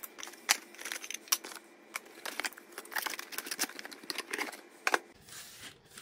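Cardboard game box and its tray being handled, with irregular taps, clicks and rustles of cardboard and plastic pieces; the sharpest knocks come about half a second in, near a second and a half, and near five seconds, and it goes quieter after that.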